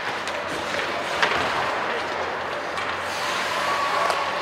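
Ice hockey game in play in an indoor rink: a steady hiss of skates on the ice mixed with arena hubbub, with one sharp click about a second in.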